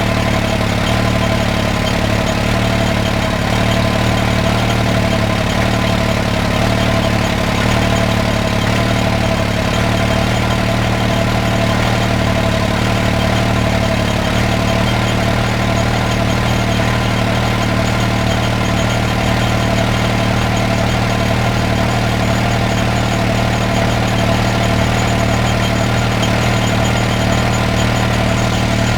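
1950 Caterpillar D6 crawler tractor engine running at a steady idle, an even, unchanging engine hum.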